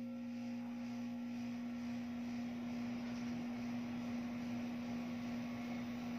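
Split-type air conditioner outdoor unit running just after start-up: a steady hum with one strong, even pitch over a constant rush of air noise.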